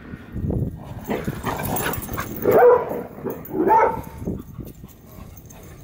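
Several dogs wrestling in play, with scuffling and short dog vocalisations. Two louder calls come about two and a half and nearly four seconds in.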